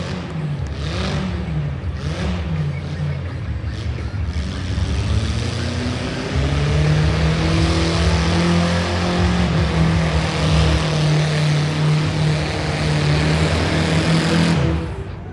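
Demolition derby car engines revving, the pitch rising and falling. About six seconds in, one engine is held at high revs for several seconds, then it drops off sharply near the end.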